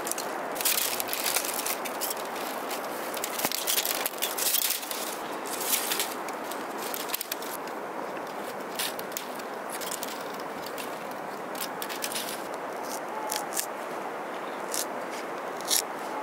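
Split bamboo strips crackling and scraping against each other as a basket is woven by hand. Sharp clicks come thickly in the first few seconds and more sparsely after, over a steady hiss.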